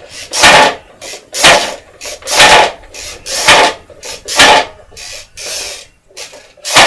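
Rasping, scraping strokes, about one a second, as board-game pieces are handled and rubbed together.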